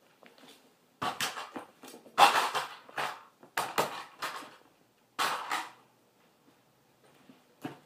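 Plastic toys clattering and scraping as they are kicked and trampled by high-heeled boots, in a series of sharp bursts, several in quick succession, the loudest a little after two seconds in.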